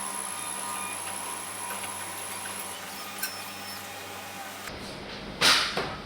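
Xhorse Dolphin XP-005 key cutting machine running its key-learning pass, its motors giving a steady whine with a high tone that stops about halfway. Near the end comes one short, loud burst of noise.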